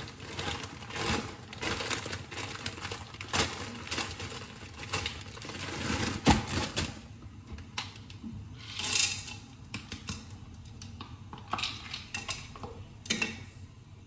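Frozen peas clicking and rattling as they are poured from a plastic bag into a plastic container and tipped into a metal pot, with rustling of the bag. The clicks come in uneven clusters, with a louder knock about halfway through and a short rush of noise about nine seconds in.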